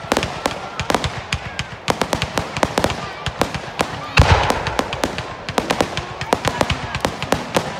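Aerial fireworks going off in quick succession: a dense, irregular run of sharp pops and bangs, with one heavier, deeper boom about four seconds in.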